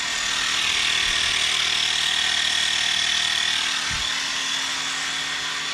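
Small portable electric tyre inflator running steadily, a motor-driven hiss with a faint whine.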